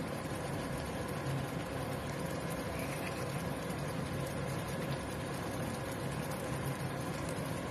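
Meat curry in a thick tomato sauce simmering in a nonstick frying pan on the hob: a steady low hum and bubbling hiss that holds even throughout.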